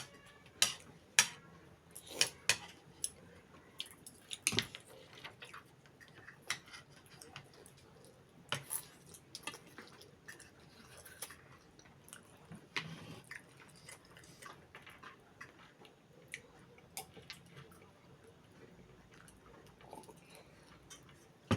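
Mukbang eating sounds: chewing, with irregular sharp clicks and taps of cutlery on a plate, most frequent in the first five seconds.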